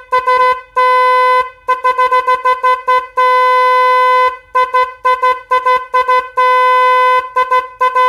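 A 12 V snail-type (spiral) electric horn, the 600 Hz version, sounding on a bench test: a string of short toots broken by several longer blasts of about a second each, all on one steady tone.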